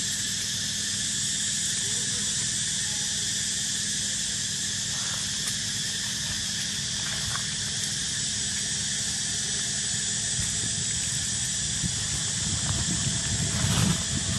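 A steady insect chorus, an unbroken high drone that does not rise or fall, with a louder low rumble near the end.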